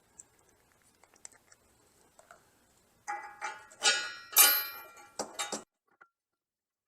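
Steel receiver bolt and hardware clinking against the steel hitch receiver and carrier base: a few light clicks, then about halfway through a run of sharp metallic knocks that ring for two and a half seconds before stopping abruptly.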